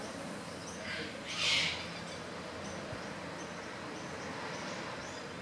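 Steady outdoor hiss with faint, short, high bird chirps now and then, and one brief louder hissing burst about a second and a half in.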